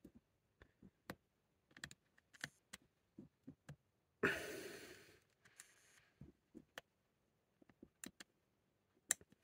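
Faint, scattered small clicks and taps of metal tools (soldering iron tip and tweezers) working on a small circuit board while a tiny SMD resistor is desoldered. About four seconds in comes a short breathy exhale, like a sigh.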